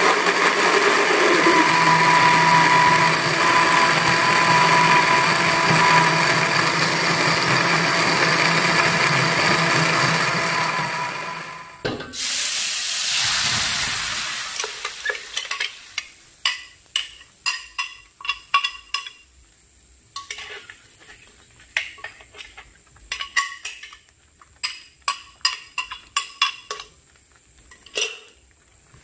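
An electric blender runs steadily, grinding a spice paste of turmeric, chili and shallots, and stops after about eleven seconds. The paste, poured into hot oil in a wok, sizzles loudly and the hiss fades over a few seconds. A spatula then stirs it, with repeated short scrapes and taps against the metal wok.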